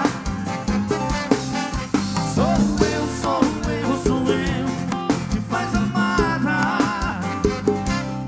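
Live arrocha band music played loud, with a steady drum beat, bass and a winding melodic lead.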